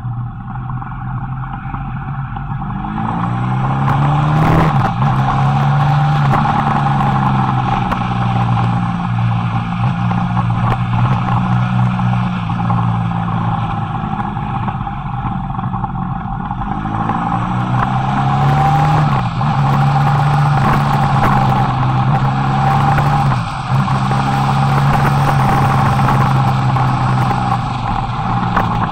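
Motorcycle engine heard from on board, pulling harder about four seconds in and again around seventeen seconds, with its pitch rising each time. Between these it goes quieter for a few seconds, and there is a short drop in level late on.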